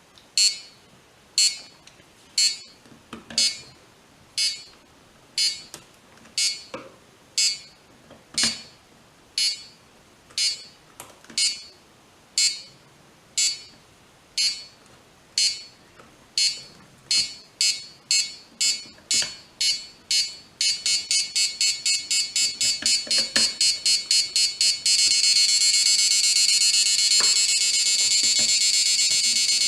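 Piezo buzzer of a homemade Arduino airsoft time bomb beeping about once a second, then speeding up to several beeps a second about two-thirds of the way in, then sounding one unbroken high tone for the last few seconds: the countdown running out.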